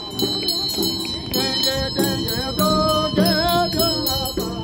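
Melodic chanting with bells ringing steadily behind it and a quick run of rattling strokes, from ritual hand drums and bells. The voice swells about halfway through.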